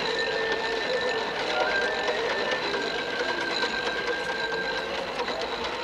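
Hand-churned ice-cream maker: a metal canister turned in a wooden tub of ice, making a steady, fast mechanical rattle.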